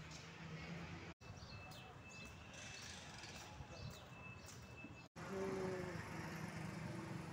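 Faint outdoor background noise from separate clips, broken by two abrupt cuts into silence. Between the cuts there are faint bird-like chirps over a thin steady high tone, and after the second cut a low hum.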